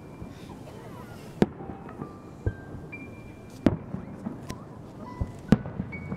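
Aerial firework shells bursting in the sky: several sharp bangs, the loudest about a second and a half, three and a half, and five and a half seconds in, over music with held notes.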